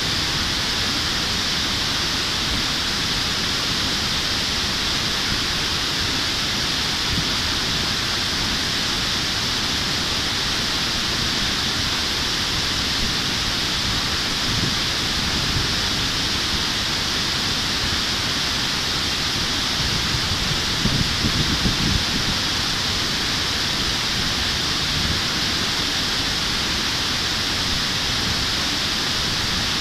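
Steady rushing of river water pouring over a low concrete weir into whitewater below, with a few brief low bumps about two-thirds of the way in.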